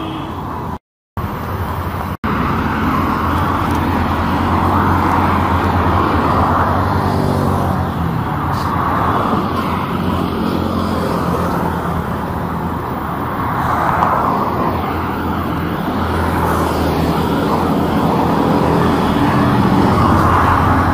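Busy road traffic: a steady wash of engine and tyre noise that swells and fades as vehicles pass. The audio drops out briefly about a second in.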